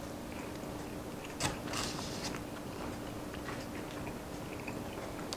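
A bite into a glazed apple fritter about a second and a half in, followed by quiet chewing, over a faint steady hum.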